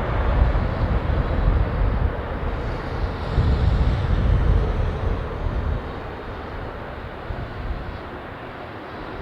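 Jet engine noise of an Airbus A380 landing on a wet runway: a deep, steady rumble that dies down over the second half.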